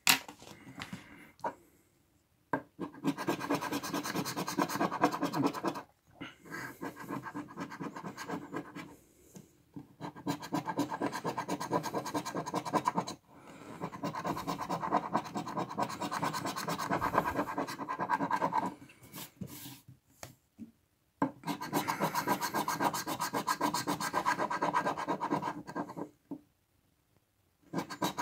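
A coin scraping the coating off an FDJ Millionnaire scratch card in rapid back-and-forth strokes. The scraping comes in about six spells of a few seconds each, with short pauses between them.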